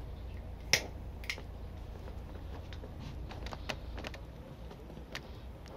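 A few sharp clicks and light taps, the loudest just under a second in and another about half a second later, over a steady low rumble.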